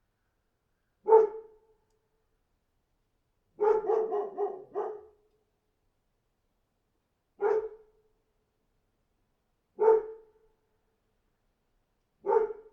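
A dog barking: one bark, a quick run of four about two seconds later, then three more single barks a few seconds apart, with dead silence between them.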